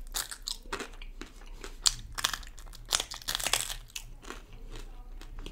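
Mouth crunching on a deep-fried, cornflour-coated mutton momo, bitten into and then chewed. It is a run of irregular crisp crunches, loudest about two and three seconds in.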